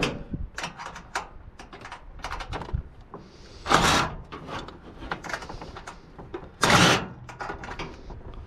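Clicks, knocks and clatter from a water cooler being taken apart by hand, with two short, loud scraping rushes, one about four seconds in and one near seven seconds.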